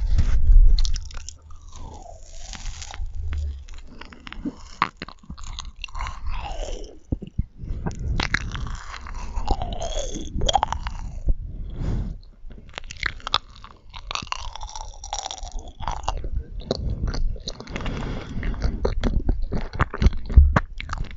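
Marshmallows being chewed close to the microphone: chewing and biting mouth sounds with many small clicks.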